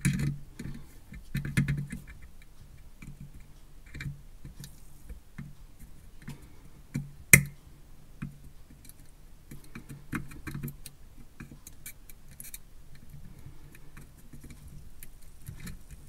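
Small scattered metal clicks and taps from a screwdriver blade and soldering iron working at a mini USB port on a circuit board while the solder is heated to pry the port out, with one sharper click a little past seven seconds in.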